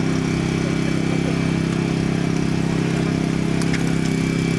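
A vehicle engine idling steadily, a constant low hum with a fast, even pulse.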